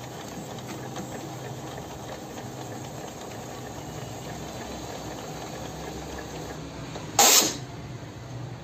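Epson ink-tank printer running after being switched on: a steady hum and hiss of its mechanism from inside, with one brief loud harsh burst about seven seconds in. This is the strange internal noise that goes with its blinking red error light, a sign of a fault inside the printer.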